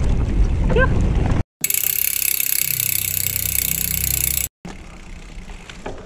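Rumble and wind noise of a mountain bike riding a dirt trail, with a short rising squeak, cut off after about a second and a half. Then a logo sound effect: about three seconds of bright hissing over low steady tones. It ends abruptly, and quieter outdoor ambience follows.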